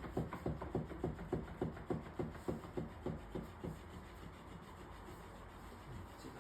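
A cat scratching, its claws raking a scratcher in quick strokes, about three or four a second, that fade out about halfway through.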